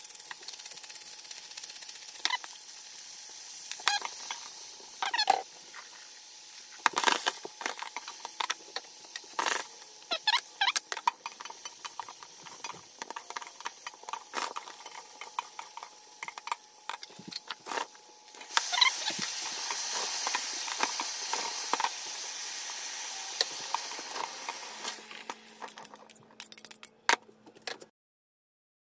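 Beech mushrooms sizzling in hot oil in a stainless steel sauté pan, with a utensil knocking and scraping against the pan as they are stirred. About two-thirds of the way through the sizzle suddenly gets louder, then it fades out near the end.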